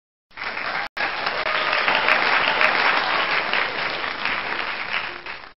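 Canned studio-audience applause sound effect rewarding a correct answer on a game show. It starts just after a short gap, breaks off for an instant about a second in, and cuts off abruptly near the end.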